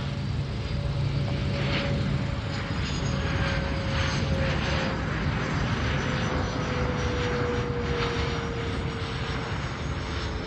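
Bombardier Challenger 600-series twin-turbofan business jet passing by: a steady jet roar with a thin whine that slowly falls in pitch.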